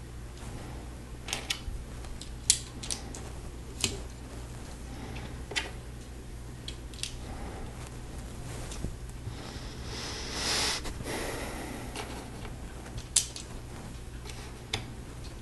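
Lego plastic pieces clicking as they are pressed and clipped onto a model: irregular sharp snaps, with a brief rustle about ten seconds in, over a steady low hum.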